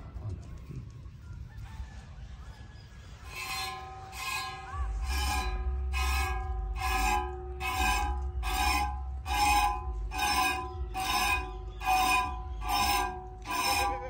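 Hand-milking a goat into a stainless steel pot: jets of milk strike the metal about twice a second, each squirt making the pot ring with the same few tones. The squirting starts about three seconds in.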